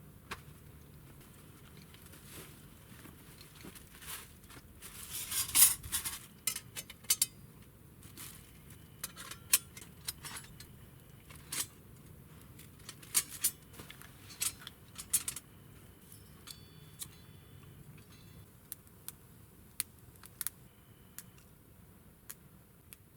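Metal cookware and utensils clinking and clattering as they are handled: a series of sharp separate clicks, with the loudest cluster about five seconds in.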